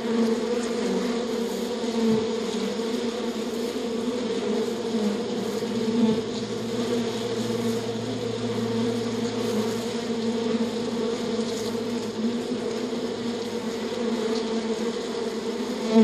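Honeybees crowded on the wax comb of a hive, buzzing as a colony in a steady, even hum.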